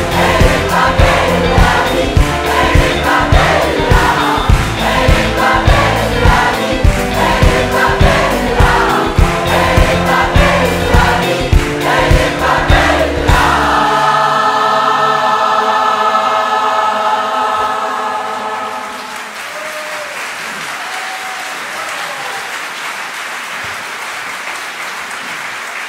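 A large choir of about 130 voices singing with an eight-piece band, the drums and bass keeping a steady beat. About fourteen seconds in, the band drops out and the choir holds a final chord, which gives way a few seconds later to audience applause.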